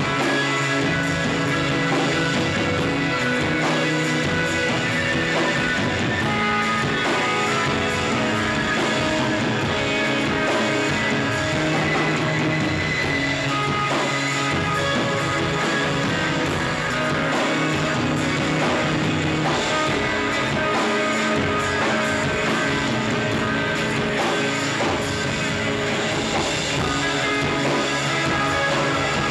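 Live shoegaze rock band playing, with electric guitars and bass holding dense, long-sustained chords at a steady loudness.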